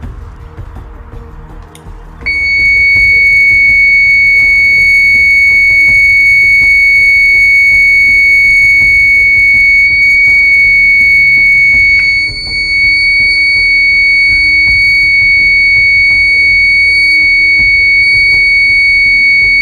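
An old 12-volt house-alarm siren on its solid-tone wire, sounding one loud, steady, high-pitched tone with no pulsing. It comes on about two seconds in and dips for a moment about twelve seconds in, then carries on.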